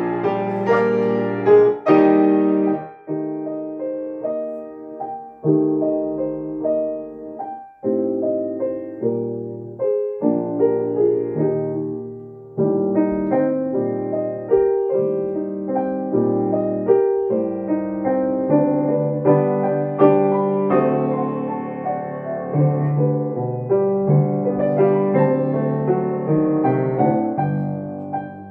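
Piano played four hands: a slow classical duet of full, held chords in phrases with short breaks between them, growing busier in the second half.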